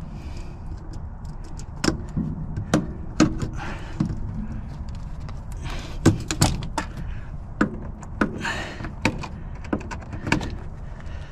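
Irregular knocks and clanks of a discarded washing machine being handled and shifted against a truck bed, about a dozen sharp hits spread unevenly over the stretch.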